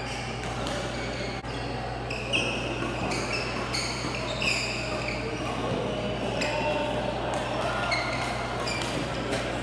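Badminton players' court shoes squeaking in short sharp chirps many times on the hall floor during a doubles rally, with a few racket-on-shuttlecock hits, over a steady low hum.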